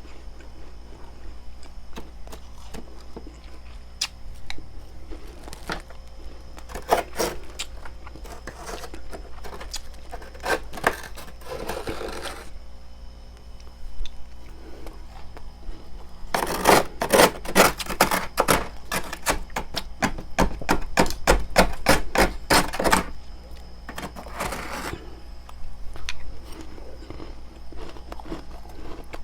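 Frost ice being bitten and chewed, crunching in bursts of quick crisp crunches: a run from about seven to twelve seconds in, then a longer, louder run from about sixteen to twenty-three seconds, with quieter chewing between.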